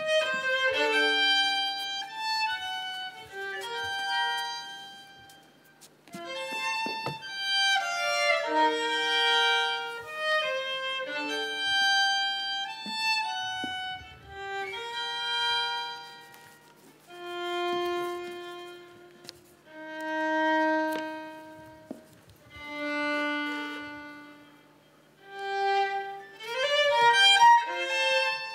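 Violin playing a melody: quicker runs of notes in the first half, then long single notes that swell and fade one after another, before quicker playing returns near the end.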